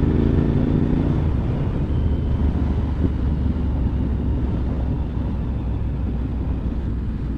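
Suzuki TL1000 V-twin motorcycle engine running at a steady road cruise, its engine note plain in the first second or so. It then settles under a steady low rumble of riding wind on the helmet-mounted microphone.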